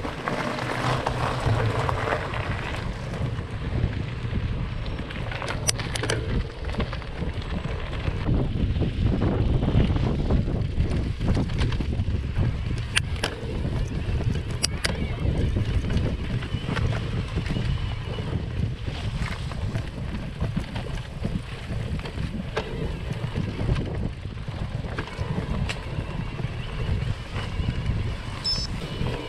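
Mountain bike riding over gravel and dirt trail: a steady rumble of tyres and wind buffeting the bike-mounted microphone, with a few sharp clicks from the bike along the way.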